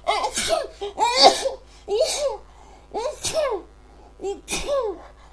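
A woman sneezing over and over in a fit, about five loud voiced sneezes roughly a second apart.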